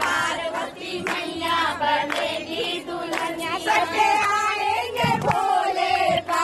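A group of women singing together in chorus, clapping along.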